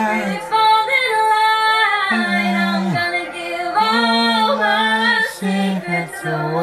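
A young woman singing solo, holding long notes that step up and down in pitch.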